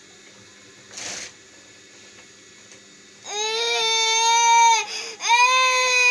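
A young child crying: a sniffling breath about a second in, then two long wailing cries from just past three seconds, split by a sharp gasp for breath.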